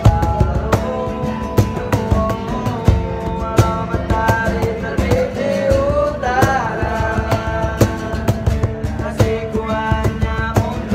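Live acoustic band: a young man singing a melody over an acoustic guitar, with a steady beat slapped by hand on a wooden cajon.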